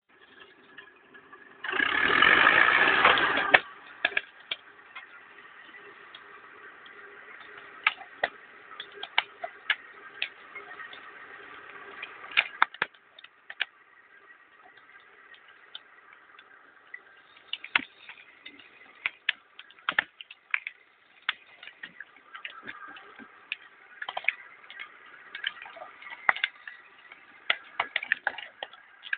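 Faint steady hum of a forestry machine's engine running, with a loud rush of noise about two seconds in and many sharp clicks and cracks scattered throughout.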